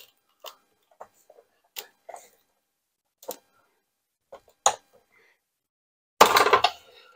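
Sizzix Big Shot die-cutting machine cranked slowly by hand, pressing an embossing folder between acrylic plates through its rollers: scattered faint clicks and creaks, then a louder noisy burst lasting about half a second near the end.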